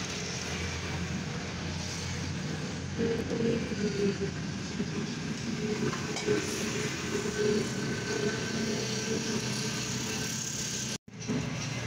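Steady background vehicle noise with a wavering low hum. It drops out for a moment near the end.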